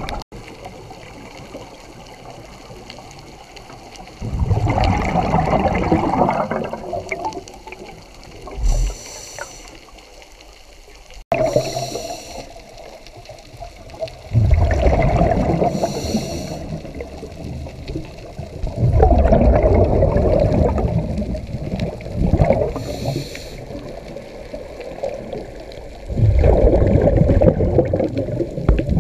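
Scuba diver breathing through a regulator underwater: every five to seven seconds a long rush of exhaled bubbles, with a short hiss of inhalation between.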